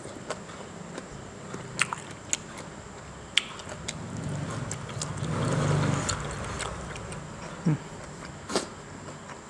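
Close-up eating sounds of spicy instant-noodle salad (yum mama) being chewed, with sharp clicks and smacks scattered through. A low rushing noise swells and fades over a few seconds in the middle.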